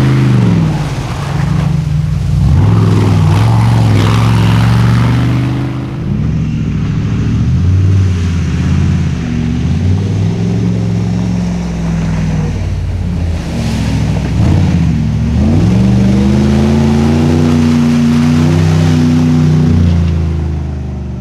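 Ultra4 off-road race buggies driving hard through deep mud, one car after another. The engines are loud, and their note repeatedly drops and climbs again as the drivers lift off and get back on the throttle.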